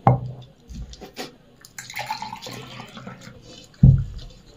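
Water splashing in a steel tumbler about halfway through, with two dull knocks on the table, one at the start and one near the end. Light clicks of fingers working over steel plates sound between them.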